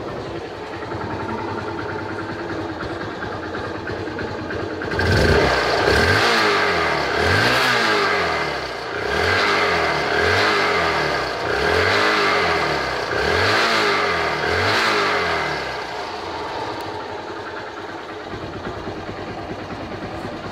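Hero Honda Hunk's single-cylinder four-stroke engine idling, then blipped hard again and again for about ten seconds, each rev rising and falling, before settling back to idle. This is a test for worn piston rings: hard revving to see whether the silencer puffs smoke.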